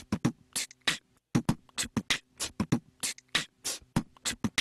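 Beatboxing: a fast, uneven run of sharp mouth-made percussion sounds, with a short pause about a second in.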